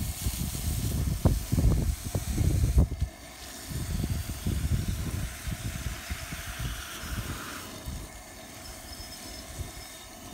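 Garden hose water spraying into a boar skull to flush it clean and splashing onto the grass, a steady hiss, with uneven low rumbling that is loudest in the first three seconds.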